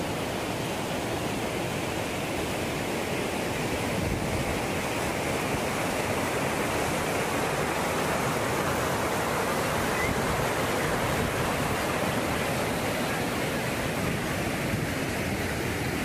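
Waterfall's water rushing in a steady, even noise.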